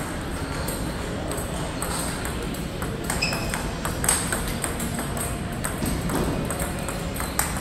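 Table tennis rally: a run of sharp, irregularly spaced clicks as the ball is struck by rubber-faced paddles and bounces on the table, over the murmur of a large hall.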